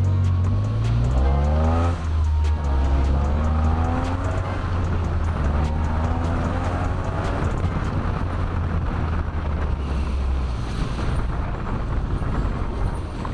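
Jeep engine accelerating through the gears: its pitch rises and drops back four times in the first seven seconds, then it runs steadily, with tyre noise on gravel underneath.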